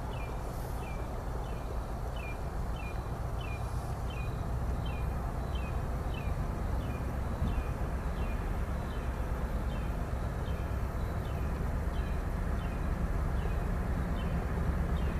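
CSX freight train's diesel locomotive rumbling low and steadily as it approaches, hauling a loaded ethanol train. Over it, a bird repeats a short, slightly falling chirp about three times every two seconds.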